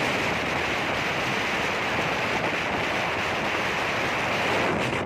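Steady wind rushing over a phone microphone on the roof of a moving bus.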